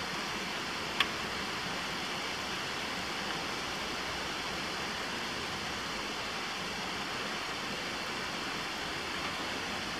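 Steady hiss of rain falling, with a single sharp tick about a second in.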